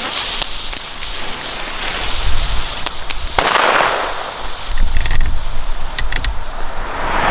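Super Boiler firecrackers, small red flash-powder bangers with 2.5 g of explosive each, going off one after another in sharp bangs.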